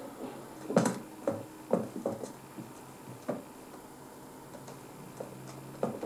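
Irregular light clicks and taps, about half a dozen spread unevenly, over a faint steady hum.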